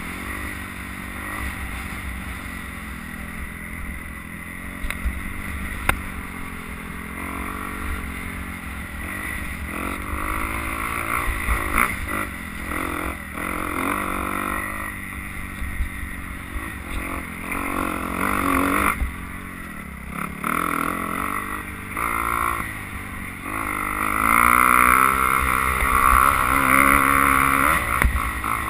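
Dirt bike engine being ridden on a hilly dirt trail, revving up and down with the throttle as it climbs and crests rises, louder and harder-revving in the last few seconds.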